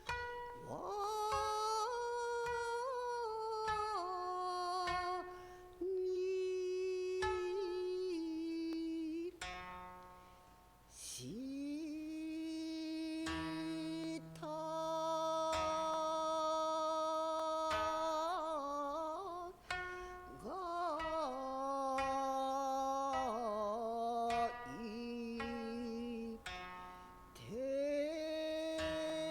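Kibigaku, traditional Japanese ceremonial music: a slow melody of long held notes that scoop up into pitch and waver between them, over a soft, steady low drone, with a brief pause partway through.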